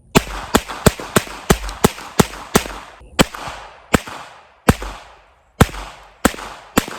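Diamondback Sidekick .22 revolver fired double action with .22 Long Rifle: a rapid string of about fourteen sharp shots, closely spaced at first and then a little further apart, each with a short fading tail.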